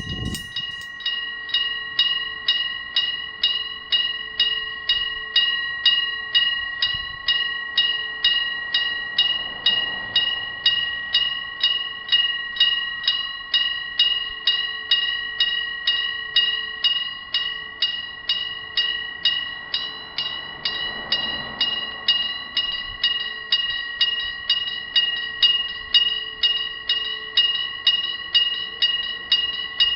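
Electric bell of a railway level crossing ringing, struck about two and a half times a second, each stroke ringing on into the next.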